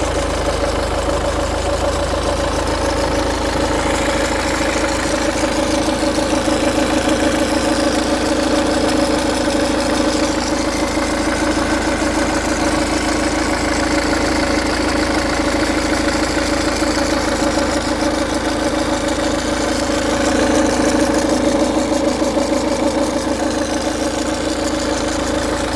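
Ford DW10C 2.0 four-cylinder diesel engine idling steadily with a fast, even rattle, which the owner takes for a rattling timing chain.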